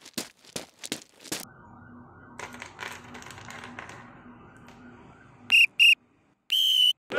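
Cartoon-style sound effects for a stop-motion toy: a quick run of clicks, a quiet hiss, then two short high beeps and a longer beep near the end.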